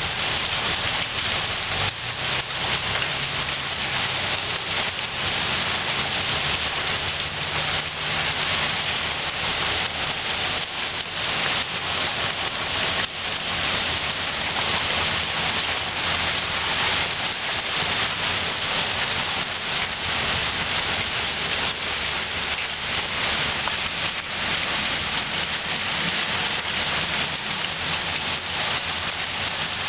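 Heavy rain pouring in a severe storm, a steady loud downpour drumming on surfaces with no letup.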